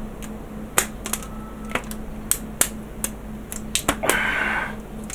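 Irregular sharp clicks and taps of hands handling small hard items, with a short scratchy burst about four seconds in, made while stopping resin leaking from the bottom of a silicone mould.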